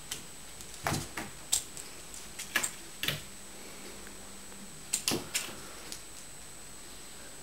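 A cat's paws slapping and scrabbling against a wall and landing as it leaps at a spot of light: sharp taps and knocks in three clusters, about a second in, around two and a half to three seconds in, and around five seconds in.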